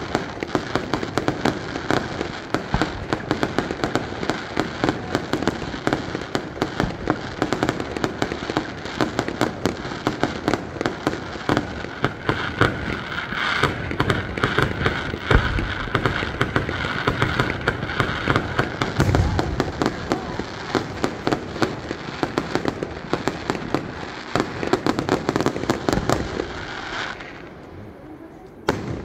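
Fireworks display: a dense barrage of shells bursting and crackling, many bangs a second. The barrage dies away about two seconds before the end, with one last bang near the end.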